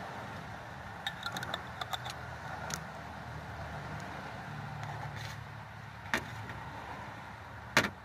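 Steady low rumble of a nearby vehicle engine running, with scattered light clicks and taps as pickle containers and a plastic fork are handled, and a sharper knock near the end.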